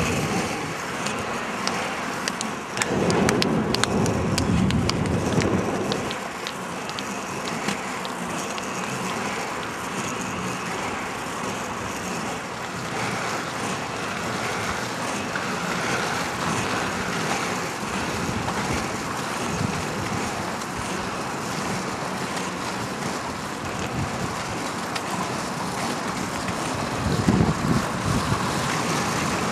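Inline skate wheels rolling on asphalt, a steady rushing noise from a pack of skaters on the move. There is a louder low rumble from about three to six seconds in and again briefly near the end.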